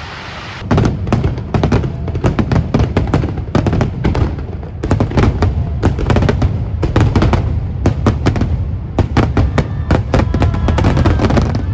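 A fireworks display: a rapid, irregular barrage of crackling bursts and low booms, starting about half a second in, with music playing underneath.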